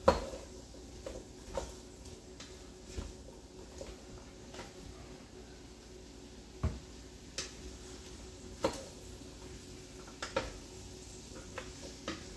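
Wooden spoon stirring diced vegetables in a pot, knocking against the pot in scattered, irregular clicks and knocks. The loudest knock comes right at the start.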